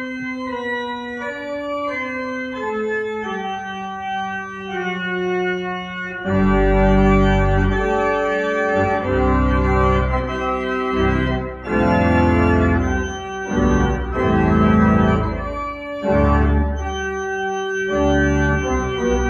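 Pipe organ playing: a lighter passage with a bass line stepping downward note by note, then about six seconds in the full organ with deep pedal bass comes in, much louder and fuller.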